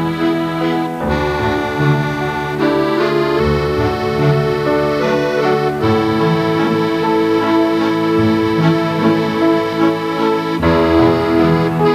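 Instrumental background music: held chords with a melody line over them, the chords changing every few seconds.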